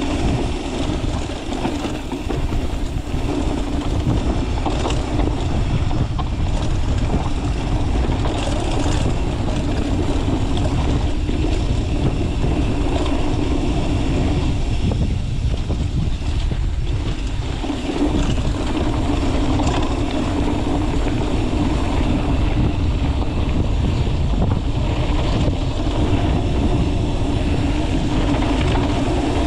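A motor running steadily, with wind rumbling on the microphone.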